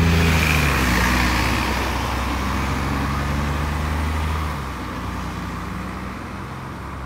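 A 2004 diesel city transit bus pulling away past the listener, its engine and tyre hiss loudest at the start and fading as it drives off. The low engine note drops away about four and a half seconds in, leaving general traffic noise.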